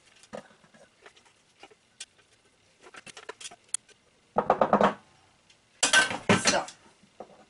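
Chopped carrots being emptied out of a Thermomix's stainless-steel mixing bowl: light scrapes and taps, then two louder bursts of scraping and clatter about four and a half and six seconds in, the second as the bowl goes back onto its base.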